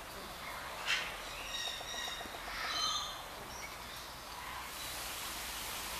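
Small birds chirping and twittering in short high calls scattered through, over steady outdoor background noise, with a brief rushing sound about a second in.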